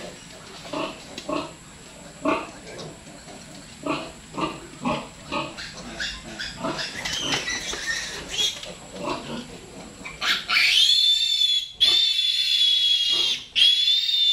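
Pigs grunting in short, repeated grunts, then about ten seconds in a piglet squeals loud and high, on and on with only brief breaks, as it is caught and held.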